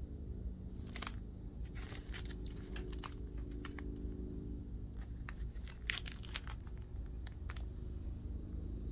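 Clear plastic comic-book sleeves crinkling as bagged comics are handled and lifted from a stack, in several spells of crackling, the loudest about six seconds in.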